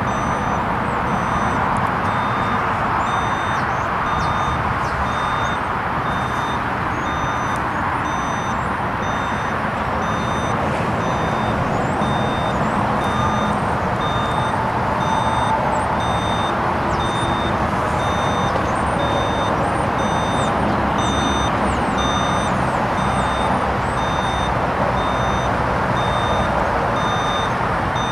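Steady running noise of heavy diesel machinery and truck traffic, with a high-pitched electronic beep repeating evenly throughout and a lower reversing alarm beeping on and off.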